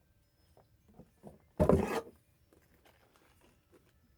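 Handling noise from the new palm sander and its parts: a few faint taps, then one short, loud rustle or clatter about a second and a half in.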